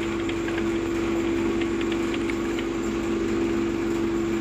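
Vehicle engine running at a steady speed, a constant hum heard from inside the vehicle, with a few faint ticks in the middle.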